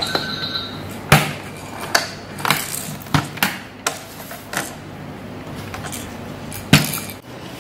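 Hard plastic clacks and knocks from a VTech Turn and Learn Cube baby toy being turned over and its parts handled, including the rotating letter blocks. The knocks are irregular, about eight of them, and the loudest comes near the end.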